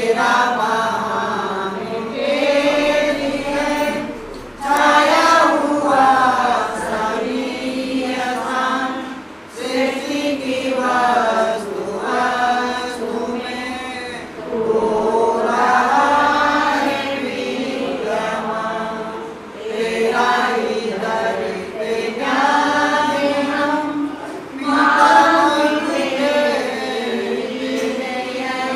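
Several voices chanting together in short, repeated sung phrases, with no instruments standing out.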